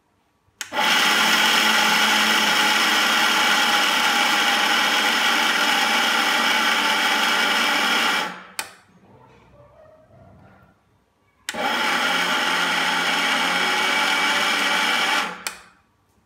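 Electric mixer grinder running in two steady bursts, the first about seven seconds long and the second about four, with a short pause between them. The grinder is dry-grinding roasted, skinned peanuts into a powder.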